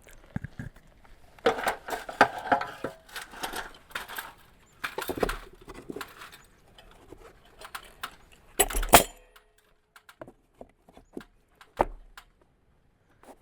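Wooden siding boards and tools being handled: intermittent clattering and knocks, with the loudest clatter about nine seconds in.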